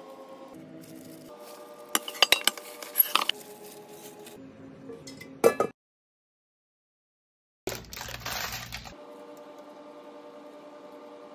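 A metal utensil clinks and scrapes against a steel pot several times in quick succession about two seconds in, with one more sharp clink a few seconds later, over soft background music. The sound then cuts out completely for about two seconds, and a brief burst of noise follows.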